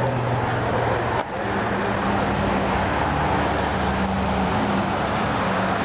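Steady motor-vehicle noise: a low engine hum under a broad wash of road and traffic noise, with a brief drop about a second in.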